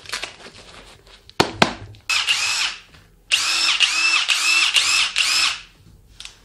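Bosch GDX 18V-EC brushless impact driver run in the air with short trigger pulls: one burst about two seconds in, then five quick bursts in a row, each a motor whine that rises as it spins up. Two sharp clicks come just before the first burst.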